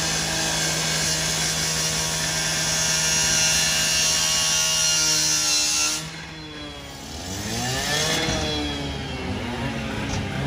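A handheld power saw cutting into the metal body of a garbage truck, a loud steady whine that sags slightly in pitch and cuts off suddenly about six seconds in. An engine then revs up and down briefly near the end.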